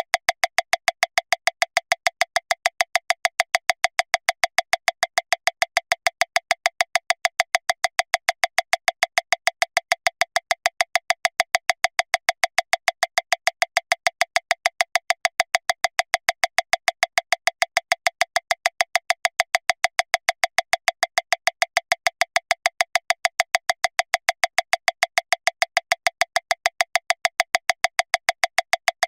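Metronome clicking at 405 beats per minute, a click about every 0.15 seconds. The clicks are fast, sharp and evenly spaced, all at the same strength.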